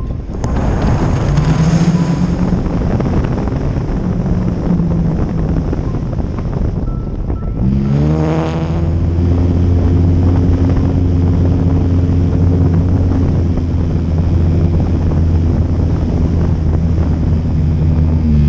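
Wind rushing over the microphone of a Radian glider while it glides with its motor off. About eight seconds in, its brushless electric motor and folding propeller spin up with a rising whine, run at a steady pitch, and cut off just before the end.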